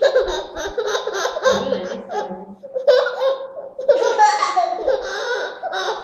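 Toddler laughing in repeated bursts.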